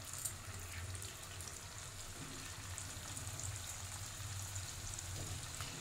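Cabbage manchurian balls deep-frying in hot oil in a kadai: a steady, soft sizzle, with a low hum underneath and a faint tick or two.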